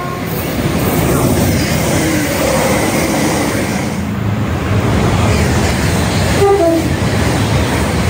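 Passenger trains running through a station at speed: a steady rush and rumble of wheels on rail, with a short horn toot about six and a half seconds in.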